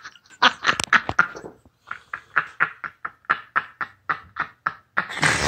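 Laptop keys being tapped one at a time in slow, hunt-and-peck typing: short sharp clicks, uneven at first, then settling to about four a second.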